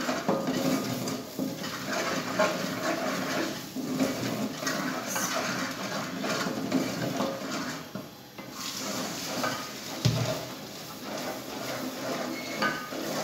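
Spoon scraping and clinking against the inside of an aluminium cooking pot as chickpea curry is stirred, with a louder knock about ten seconds in.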